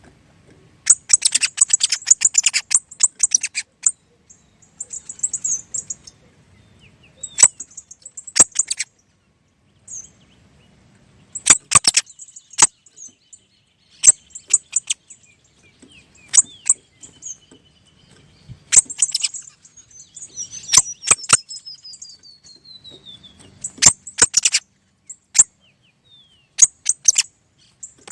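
Small songbirds chirping in short bursts of rapid, sharp, very high chirps, with quiet gaps between the bursts. About twenty seconds in, a thin whistle slides down in pitch.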